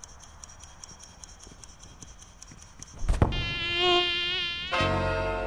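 Faint rapid ticking, then a sharp thud about three seconds in, followed by a wavering, whining buzz like a mosquito for about a second and a half. Music with held chords comes in near the end.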